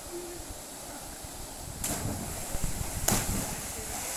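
Wind buffeting the microphone as a low rumble, with two sharp knocks about two and three seconds in.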